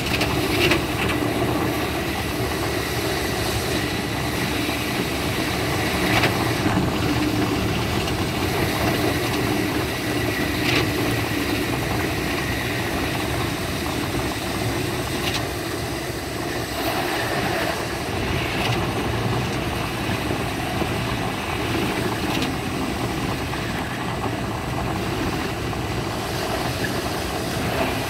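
Steady running noise of a limited express electric train (JR West Thunderbird) heard from inside the passenger car, with a few faint clicks now and then.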